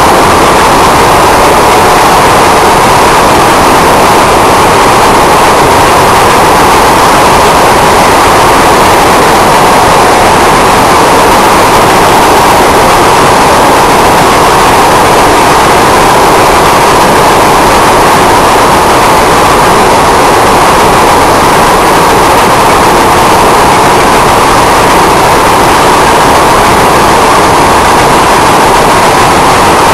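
Paducah & Louisville Railway freight train running: a loud, steady roar that does not change.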